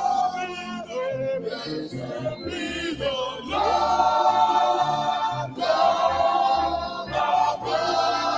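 Church choir and congregation singing a gospel praise song together, many voices at once.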